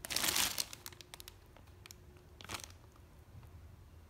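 Clear plastic wrapping crinkling as it is handled around a plastic plate: a burst at the start, scattered light clicks, and another brief crinkle about two and a half seconds in.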